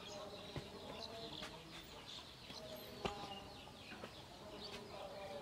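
Faint background of birds calling, with short high chirps and lower clucking calls, and two sharp taps: a light one about half a second in and a louder one about three seconds in.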